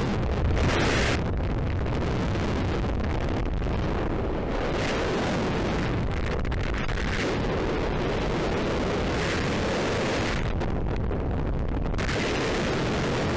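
Heavy wind rushing and buffeting over the camera's microphone in skydiving freefall, steady throughout, with a brief louder gust about half a second in.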